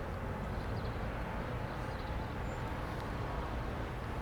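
Eurocopter EC135 helicopter running, a steady engine and rotor noise with a faint whine.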